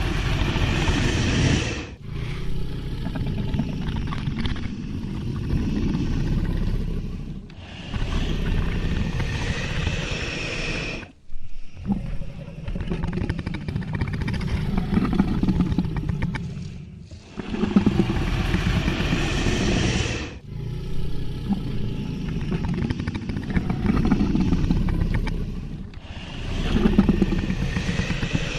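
A run of dragon creature sound effects: about seven separate deep roars and calls, each two to five seconds long, with short breaks between them.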